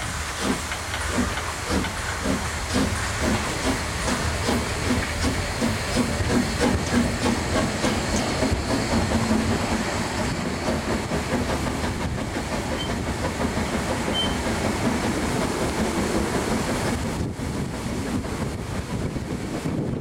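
HSB steam locomotive 99 7234-0, a metre-gauge 2-10-2 tank engine, pulling away: its exhaust chuffs come faster over the first several seconds. They then blend into a steady hiss of steam and running noise as the train gathers speed, heard from a carriage window.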